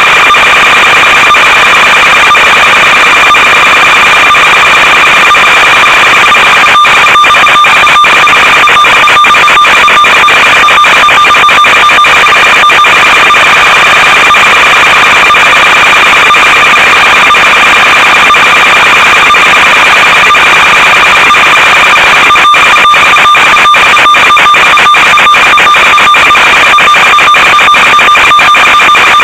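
Loud, steady electronic buzz and hiss from the analog FPV video link's audio channel: one fixed tone with overtones over static, unchanged as the throttle changes. Rapid crackling breaks into it about seven seconds in and again from about twenty-two seconds on.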